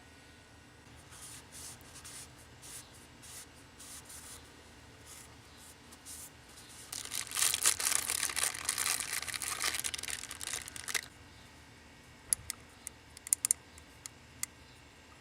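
Packaging of a new oil filter being handled and torn open: light rustling, then a few seconds of loud crinkling and tearing in the middle, followed by a handful of sharp clicks near the end.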